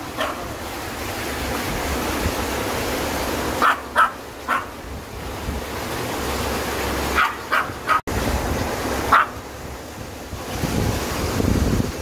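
Shallow mountain stream rushing steadily over rocks, with a small Maltese dog giving a few short yips and barks.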